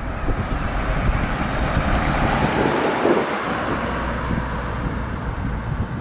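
A 1967 Ford Thunderbird with a 390 V8 driving away down the road, its engine and tyre noise strongest about halfway and easing off toward the end, with wind rumbling on the microphone.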